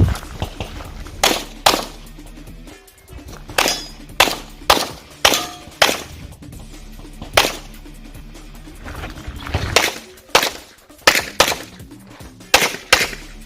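Handgun shots fired during a practical-shooting stage: about fifteen sharp reports in uneven strings, several in quick pairs, with short pauses between groups.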